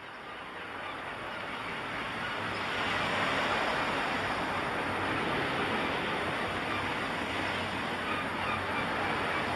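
A steady rushing noise that fades in over the first three seconds and then holds even.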